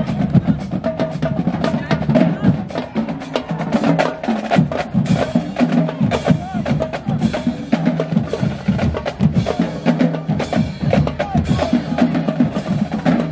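Marching band drumline playing a street cadence: a fast, even run of snare hits and stick clicks over bass drum beats.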